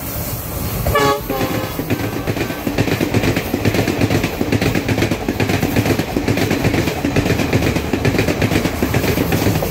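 Sri Lanka Railways Class S14 diesel multiple unit sounding a short horn blast about a second in, then passing close by with a loud, steady rumble and fast clattering of its wheels over the rail joints.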